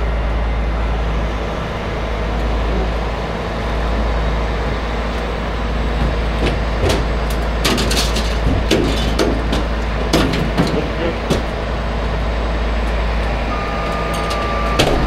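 Heavy-duty rotator tow truck's diesel engine running steadily to power its boom winches while lifting an overturned fire engine, with a series of sharp metal clanks and knocks from the load in the middle. A repeating electronic beep starts near the end.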